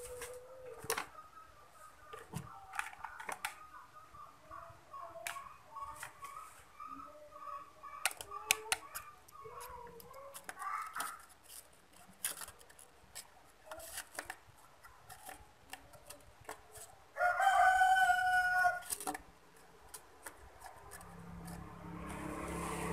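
A rooster crows once, loud, for about two seconds some seventeen seconds in. Before that come softer, wavering bird calls and scattered sharp clicks. Near the end a low hum and hiss slowly rise.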